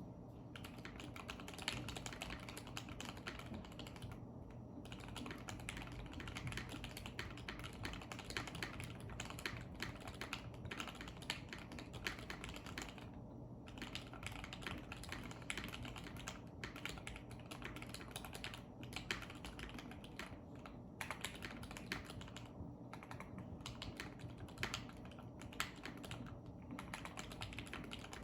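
Continuous fast typing on a custom 60% mechanical keyboard: Alpaca linear switches, filmed and lubed with Krytox 205g0, under PBT keycaps on a polycarbonate plate in an aluminium Tofu60 case with neoprene foam under the PCB. The keystrokes pause briefly a few times.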